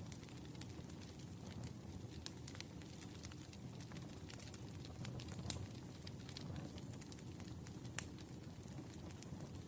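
Wood fire crackling: scattered small pops over a low steady rumble, with one sharp pop about eight seconds in.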